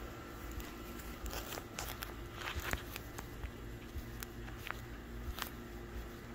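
Soft footsteps of feet in socks only, scuffing on a concrete sidewalk, with scattered short clicks and a faint steady hum underneath.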